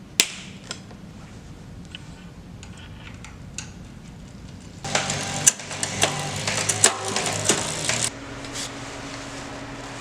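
Metal tools and bicycle parts clicking and rattling during bike assembly: a sharp click just after the start, scattered light clicks, then a louder dense run of rapid clicking and rattling from about five to eight seconds in, followed by a steady low hum.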